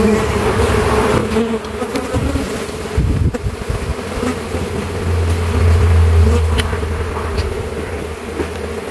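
Close swarm of honeybees buzzing steadily as they are driven out of an opened hive box with smoke, with a low rumble for a couple of seconds midway.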